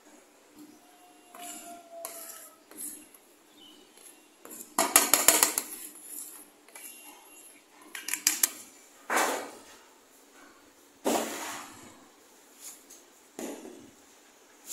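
A plastic spoon scraping and knocking on a steel plate as flour is scooped into a plastic jar, in about five short bursts of clatter, the loudest about five seconds in.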